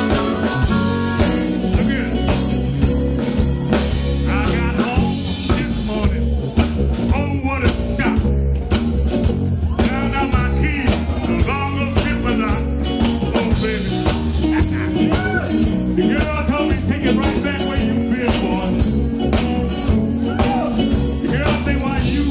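Live electric blues band playing an instrumental passage: a lead electric guitar with bending notes over bass guitar and a drum kit keeping a steady beat.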